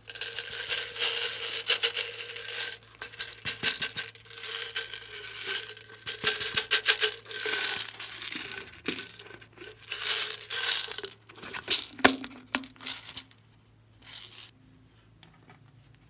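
A soft red rubber pig toy being cut with scissors and squeezed by hand: a long run of crinkling, rustling handling noise in quick irregular bursts that dies away about thirteen seconds in.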